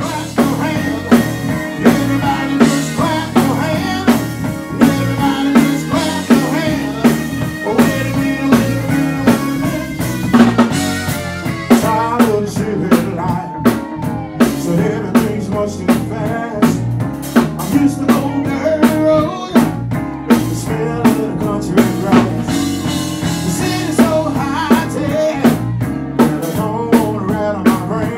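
Live band playing: a drum kit keeps a steady beat under electric bass and keyboards.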